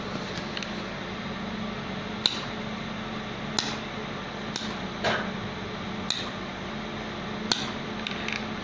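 Handheld laser welding machine running with a steady low hum, with sharp metallic clicks and clinks at irregular intervals, about one every second or so.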